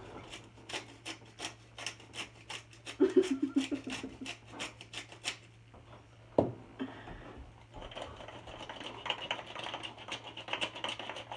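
Wooden pepper mill being twisted to grind pepper onto eggs in a bowl: a quick run of ratcheting clicks, about four a second. About six seconds in there is a single sharp knock, and the grinding starts again near the end.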